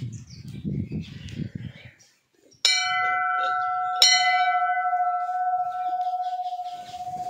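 Hanging temple bell struck twice, about a second and a half apart. Each strike rings out in one clear tone that slowly fades.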